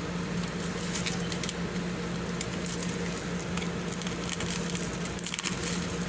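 Crackling and rustling of a plastic parcel and bubble wrap being handled and opened, over a steady low hum.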